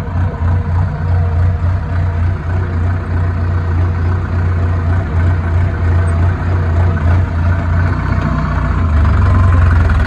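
Tractor diesel engine running steadily, with a strong low hum that grows a little louder about nine seconds in.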